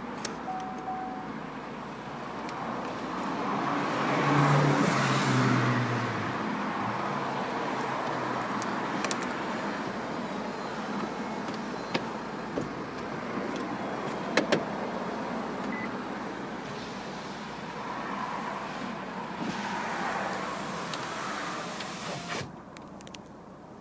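2013 Vauxhall Cascada's power-operated soft top closing: a steady motor whine, louder for a stretch about four to six seconds in, with a few sharp clicks from the mechanism, stopping abruptly near the end.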